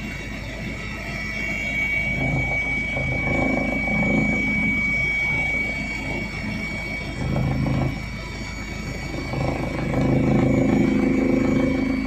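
Helicopter cabin noise in flight: a steady low drone of engine and rotor with a steady high whine, swelling louder a few times.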